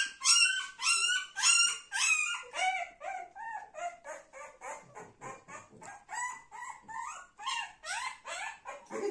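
Newborn golden retriever puppy crying in a rapid string of short, high-pitched squeals, about three a second, loudest in the first two seconds and fainter after.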